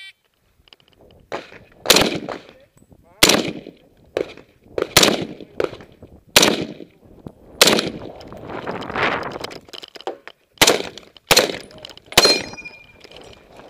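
M1 Garand semi-automatic rifle (.30-06) firing eight shots in quick strings, with a longer pause in the middle of the string. A brief metallic ring follows the last shot.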